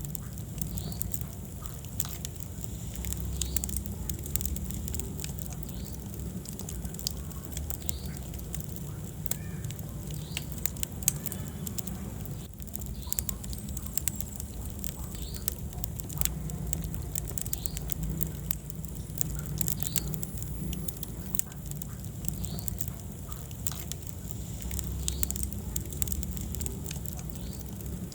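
Wood fire burning in a fireplace: irregular crackles and sharp pops over a steady low rumble of the flames, with one louder pop about eleven seconds in.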